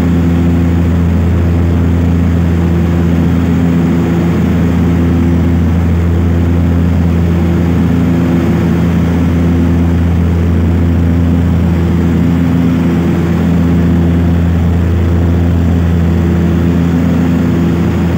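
Propeller airplane's engines and propellers heard from inside the cabin in cruise: a loud, steady drone with a slow, uneven throb about once a second.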